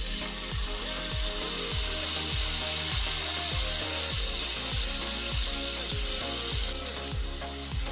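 Marinated paneer cubes sizzling loudly in butter and oil on a hot tawa. The sizzle starts suddenly as the paneer goes onto the pan and dies down a little near the end. Background music with a steady beat plays underneath.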